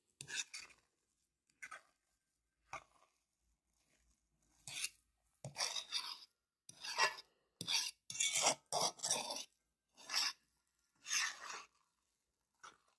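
A mixing utensil scraping and stirring through mashed potatoes in a bowl as shredded cheese is worked in: about a dozen short rasping strokes at an uneven pace, closest together around the middle.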